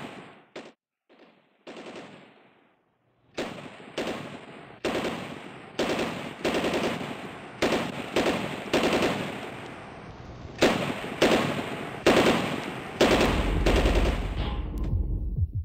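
Fireworks going off: a run of sharp bangs, each trailing off briefly, about one or two a second, after near quiet in the first three seconds. A low steady hum comes in underneath near the end.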